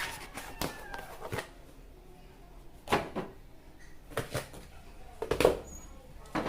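Food containers and bags being handled in a refrigerator: a series of irregular knocks and clacks, the loudest near the end.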